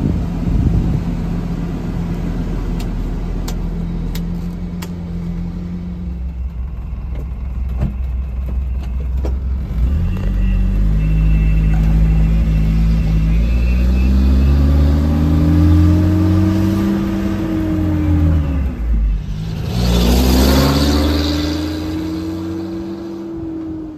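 1992 Nissan Vanette truck's engine idling steadily, then rising in pitch as the truck pulls away. The pitch drops at a gear change about nineteen seconds in, then climbs again before fading. There is a brief rush of noise about twenty seconds in, and a few light clicks about three to five seconds in.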